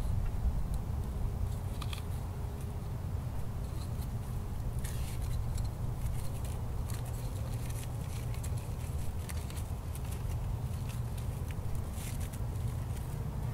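Small irregular crackles and rustles of hands twisting and tying cord, over a steady low wind rumble on the microphone.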